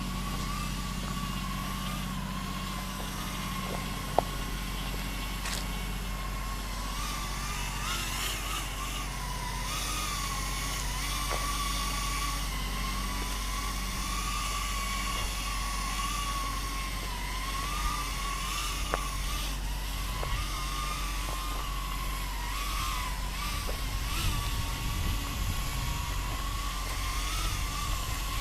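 Beta 85 Pro 2 micro quadcopter's brushless motors whining in flight, the pitch rising and falling constantly with the throttle, over a steady low rumble.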